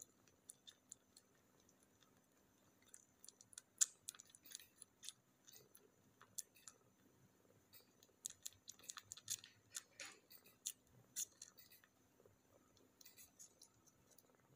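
Orange kitten suckling on its littermate's belly: faint wet clicks and smacks that come in clusters, the busiest a few seconds in and again in the middle.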